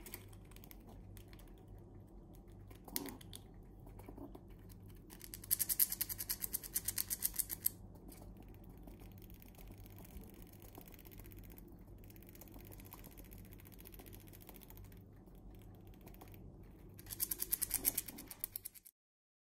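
Red squirrel gnawing and cracking pine nut shells with its teeth: rapid runs of fine clicks, once about five seconds in and again near the end, with quieter nibbling between.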